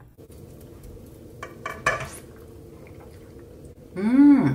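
A few light clinks of utensils against cookware about a second and a half in. Near the end comes a woman's appreciative "mmm" as she tastes the broth, rising then falling in pitch.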